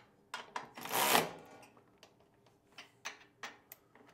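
Milwaukee cordless ratchet run in one short burst about a second in, tightening the hinge-plate bolts, with a few light clicks before and after as the tool is set on the nuts.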